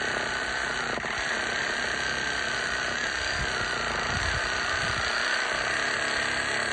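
Dnipro-M RS-12 cordless reciprocating saw running without a break as its blade saws through a fruit-tree branch. There is a steady motor whine under a rasping cutting noise, and the whine sinks slightly in pitch as the cut goes on.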